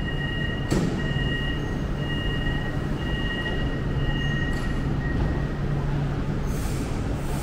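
Inside a Hyundai Rotem MRT train: a steady low hum and rumble. For the first four seconds or so two thin high tones hold steady over it, and a sharp click comes about three-quarters of a second in.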